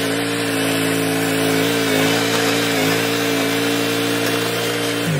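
Riding lawn mower's small engine running at a steady speed, with a hiss over its hum; its pitch drops just at the end.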